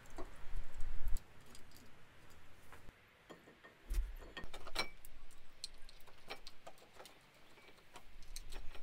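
Scattered light metallic clicks and clinks as a slotted brake disc is handled on the wheel hub and a red Brembo caliper is fitted over it, with a couple of dull knocks near the start and about four seconds in.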